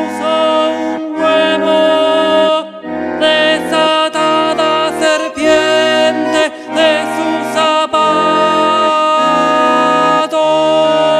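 Bandoneon playing a wordless passage of chords that change about every second, then settling on one long held chord about eight seconds in.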